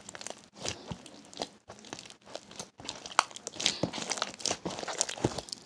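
Hands kneading and squishing thick slime with shower gel worked into it, giving irregular small sticky pops and crackles that come thicker in the second half.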